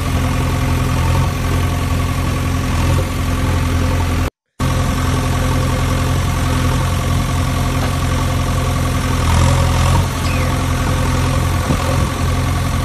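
Steady engine-like hum made of several even tones. It cuts out completely for a split second about four seconds in.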